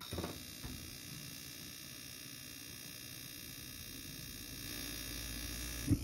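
Fan heater starting up and igniting: a steady rushing hiss starts suddenly, with a short low thump near the end.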